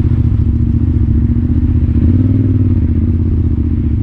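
Yamaha Ténéré 700's parallel-twin engine running steadily, with a slight rise in pitch about two seconds in.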